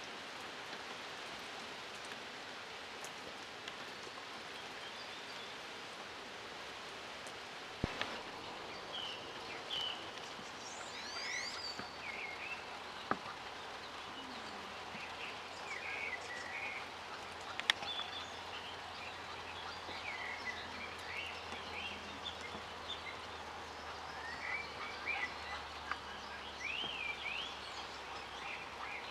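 Small birds chirping and giving short whistled notes, some rising or falling, scattered from about nine seconds on over a steady background hiss. A few sharp clicks and a faint low hum through the middle.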